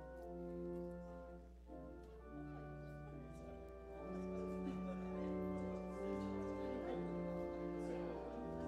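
Slow instrumental music of held chords, changing every second or two over a steady low drone, getting louder about halfway through.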